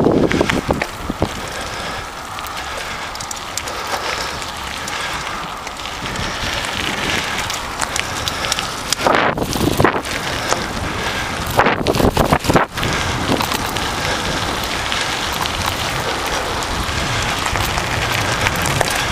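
Mountain bike riding over a rocky gravel trail: a steady crunching and crackling of tyres on grit and stones with wind buffeting the microphone. Two spells of harder rattling come about halfway through and again a couple of seconds later, as the bike crosses rougher ground.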